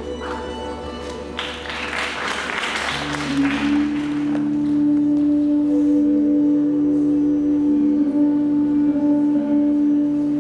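Instrumental music with long held notes. A rushing noise swells over it from about a second and a half in and fades by about four and a half seconds, and then one steady note carries on to the end.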